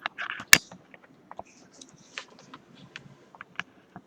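Scattered light clicks and taps from small objects being handled on a workbench, with one sharp click about half a second in.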